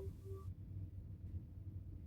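The last of a struck chime's ring fading out in the first half second, then a faint, steady low hum of room tone.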